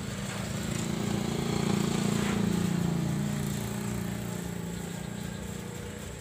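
A small engine passing by with a steady hum. It grows louder for about two seconds, then slowly fades away.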